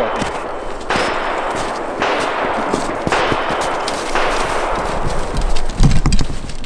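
Footsteps crunching through snow, about one step a second, with a few heavy thumps near the end.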